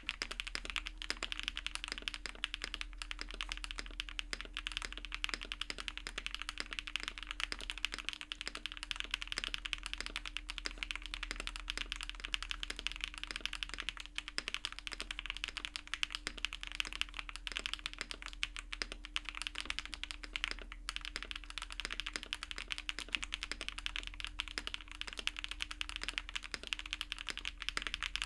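Steady, fast typing on a custom mechanical keyboard with HMX x Soulcat Poro Medium linear switches: a dense, continuous run of key presses.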